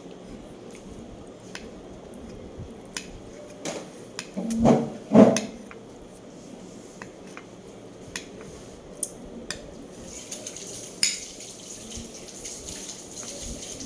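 Light clinks of dishes and cutlery, with two louder thuds about five seconds in. About ten seconds in, a hiss of running water begins.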